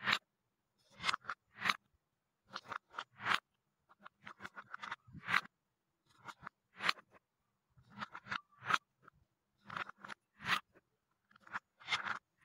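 A wooden scoop lifting painted wooden balls out of cups and dropping them into a wooden bowl. The sound comes in short clusters of clacks and scrapes about once a second, as the balls knock against the scoop, the bowl and each other.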